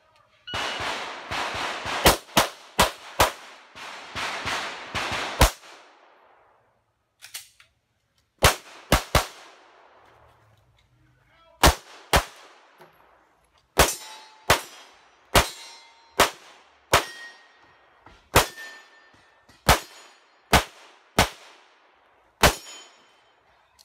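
Rapid strings of pistol shots from a Carry Optics competition pistol, about a dozen in the first five seconds, then more groups broken by short pauses. A few shots are followed by a brief metallic ring, typical of a bullet striking a steel target.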